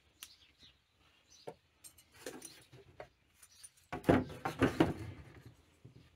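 Scattered small clicks and handling noises, then a burst of knocks and clatter about four seconds in as a moped engine is tipped and set back down in a plastic drip tray.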